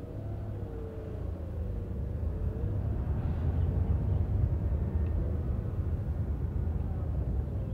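Low engine and road rumble heard inside a car's cabin in slow traffic, growing louder over the first few seconds as the car moves off, with a faint engine hum wavering in pitch.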